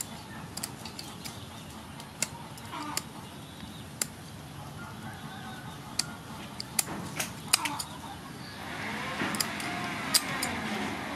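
Kitchen scissors scaling and trimming a whole sea fish: irregular sharp clicks and scrapes of the blades on scales and fins, becoming a louder, continuous rasping scrape over the last few seconds.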